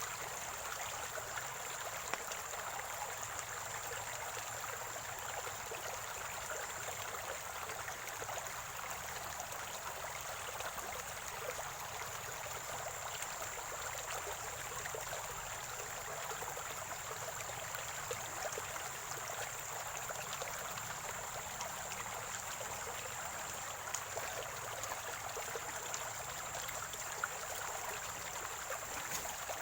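Water of a small spring-fed stream flowing and gurgling steadily over stones, with a constant bubbling trickle.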